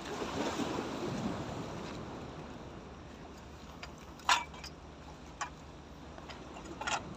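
Sea waves washing against breakwater rocks, with wind. A sharp knock about four seconds in, and two fainter ones later.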